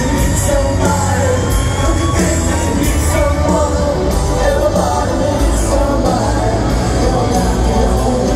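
A rock band playing live through a stadium PA, heard from the audience: a male lead voice singing a slow power ballad over the full band.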